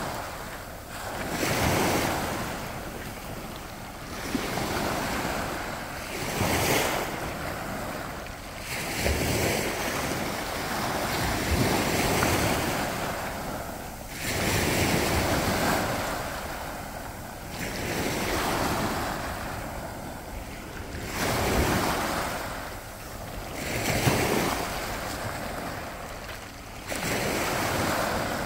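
Small Baltic Sea waves breaking and washing up onto a sand and pebble shoreline, swelling and ebbing in a surge every two to three seconds.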